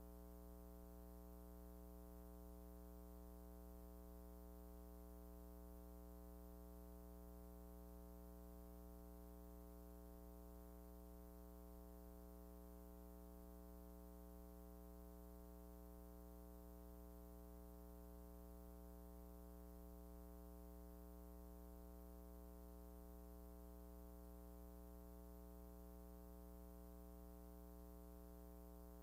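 Near silence: a faint, steady electrical hum with many overtones and nothing else.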